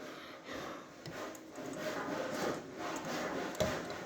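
Hard plastic parts of a model-kit action figure being handled and worked together, with irregular scraping and rubbing and a few small clicks.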